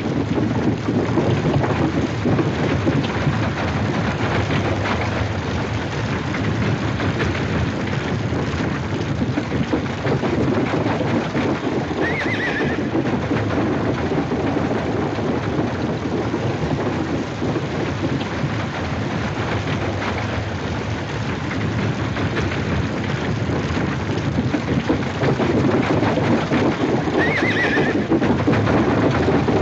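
Steady, loud rumbling noise, with a horse whinnying briefly twice, about fifteen seconds apart.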